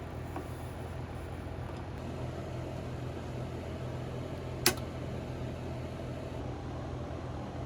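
Steady low electrical hum, with one sharp click a little over halfway through.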